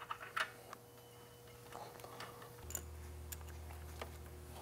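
Faint scattered clicks and taps of hands handling hoses and a fuel-line fitting in a snowmobile engine bay, over a low steady hum.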